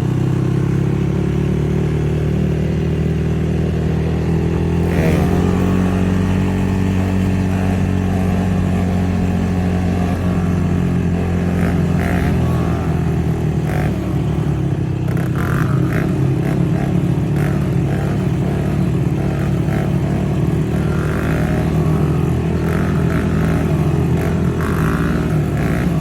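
Yamaha YFZ450 sport ATV's single-cylinder four-stroke engine running under throttle, its pitch slowly rising and falling, with scattered clattering in the second half.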